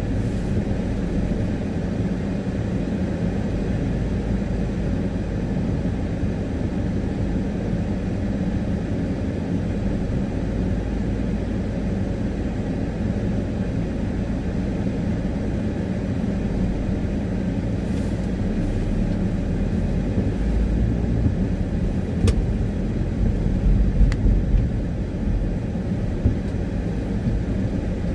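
Car cabin with a steady low rumble while the car waits in traffic. The rumble grows louder and more uneven near the end as the car pulls away, and there are a couple of sharp clicks.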